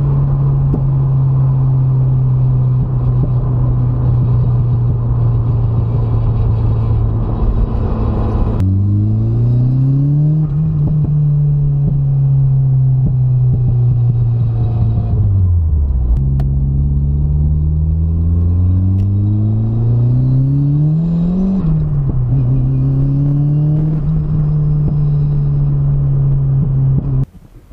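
Mazda MX-5's four-cylinder engine heard from inside the cabin while driving: a steady drone at constant speed, then pitch climbing under acceleration and dropping sharply at two gear changes before it settles to a steady cruise again. It cuts off suddenly near the end.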